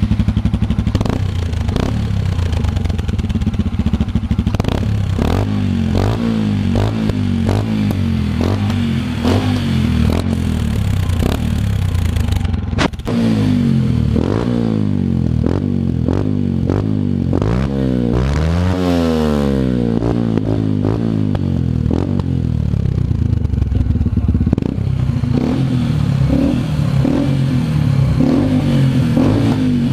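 Yamaha XT 125 X single-cylinder four-stroke engine running through a GPR Furore Nero aftermarket silencer, idling and revved in throttle blips, with a big rev up and back down about two-thirds of the way through. At first the dB-killer baffle is in the silencer; later it runs without it.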